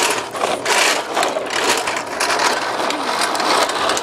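Plastic wheels of Tonka toy trucks, worn as skates, rolling fast over asphalt: a continuous rough rattling.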